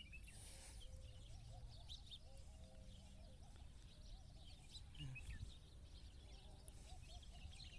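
Faint outdoor birdsong: many short, high chirps from small birds, with a lower call repeating over and over, above a low rumbling background noise.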